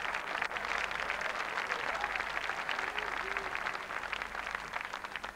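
Studio audience applauding, a dense patter of many hands clapping that thins out near the end.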